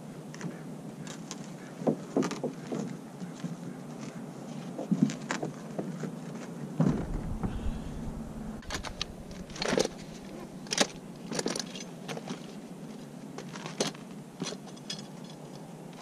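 Man handling a plastic kayak and its wheeled cart: irregular knocks, clicks and light rattles, with a heavier thump about seven seconds in.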